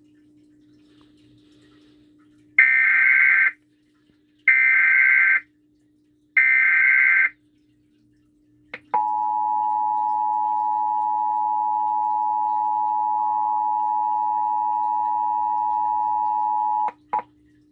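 Emergency Alert System test signal. Three loud bursts of SAME header data tones, each under a second and about two seconds apart, are followed by the EAS two-tone attention signal (853 and 960 Hz), a steady pair of tones held about eight seconds and then cut off sharply.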